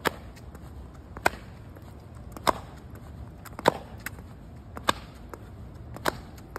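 Sneakers striking asphalt in a steady exercise step: a sharp tap about every 1.2 seconds, with fainter scuffs between.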